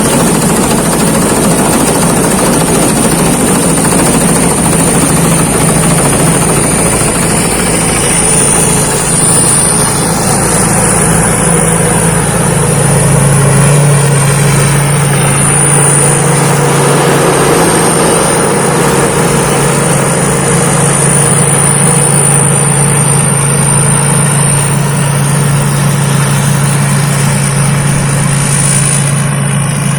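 Thai Seng Yont rice combine harvester working in the field: its engine and threshing machinery run loud and steady, with a thin high whine over a low hum. The engine pitch rises slightly about a third of the way through.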